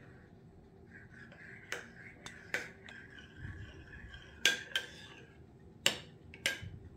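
Metal spoon stirring fresh yeast into warm water in a small ceramic bowl, clinking sharply against the bowl's side several times.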